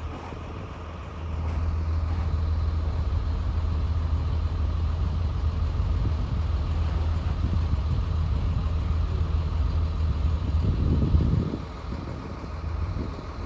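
Crane's engine running steadily, picking up in level about a second in and easing back near the end, as it works a lift.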